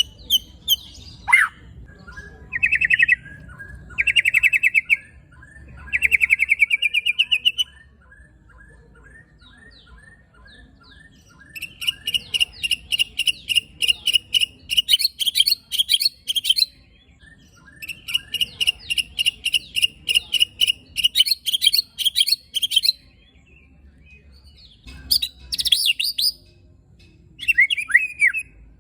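White-rumped shama singing 'tembakan' and 'besetan' phrases. These are long bursts of rapid-fire repeated short notes separated by short pauses, with a slower series of lower, evenly spaced notes through the first third.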